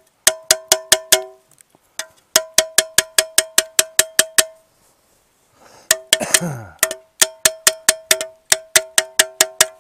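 Rusted WW2 metal tube container struck in rapid knocks, about five a second in three runs, each knock ringing with a bell-like tone, as its stuck lid is worked loose. About six seconds in, a short noisy sound slides down in pitch between the knocks.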